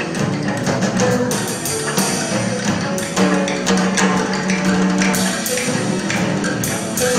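Live jazz band playing: electric guitar notes over a drum kit and hand percussion, with frequent sharp percussive hits.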